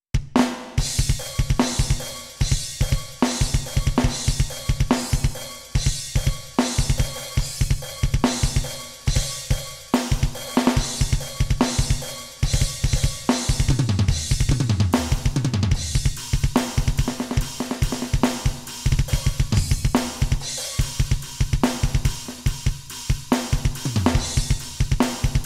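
Custom sampled drum sounds from an Alesis Nitro Mesh electronic kit, heard straight from the sound module rather than the pads. The kit starts suddenly out of silence into a fast modern-metal groove: rapid double-kick runs, snare hits, hi-hat and cymbals. Tom fills fall in pitch about halfway through and again near the end.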